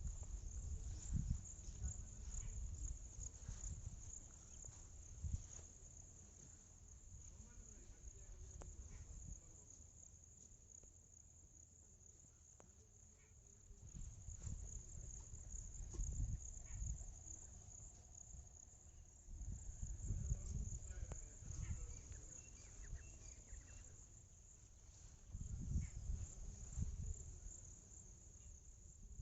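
Faint steady high-pitched chorus of field insects, with intermittent low rumbles throughout.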